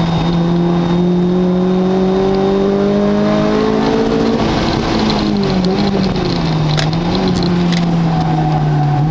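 Car engine running hard under power: its note climbs slowly for about four seconds, drops and wavers briefly, then holds steady.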